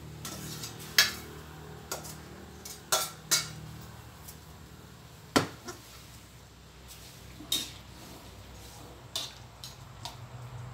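Metal spatula stirring food in a steel wok, knocking and scraping against the pan with about eight sharp, irregular clanks.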